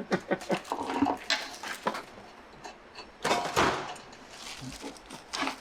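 Light clicks and knocks of handling, then a short hissing spray burst about three seconds in: a diesel injector being pop-tested on a hand tester.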